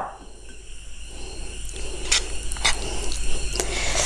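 A few soft clicks, then wet, sticky squishing near the end as fingers press into curry-gravy-covered pork ribs on a plate, over a low steady hum.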